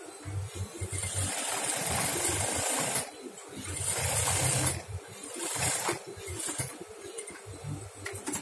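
Industrial sewing machine stitching in three short runs, with the fabric rustling as it is fed under the presser foot.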